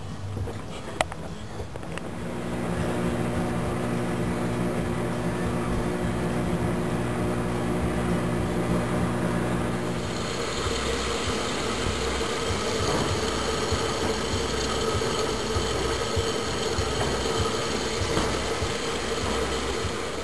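Maytag MHWZ600TB01 front-load washer running with its drum turning: a steady machine hum that grows louder about two seconds in, then shifts about halfway through to a higher hum with more hiss.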